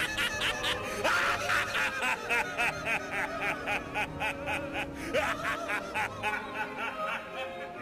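A man laughing in a long unbroken run of short 'ha-ha-ha' pulses, about five a second, over background music.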